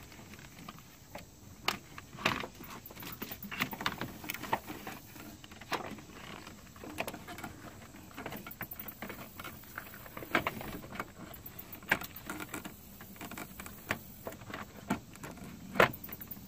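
Plastic underhood fuse box being handled and lined up on its base: irregular light clicks, taps and rattles of hard plastic against plastic, with a few sharper knocks.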